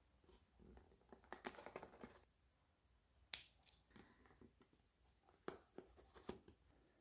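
Faint handling of clear double-sided adhesive tape on a cardboard box: a crinkly rustle about a second in, then a few sharp clicks and taps, the loudest about three seconds in, as the tape is pressed down onto the box.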